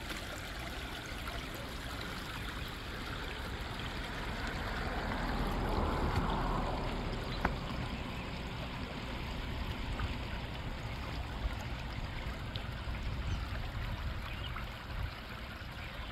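Shallow stream water running and trickling over and past a concrete crossing, a steady wash that swells a little around the middle.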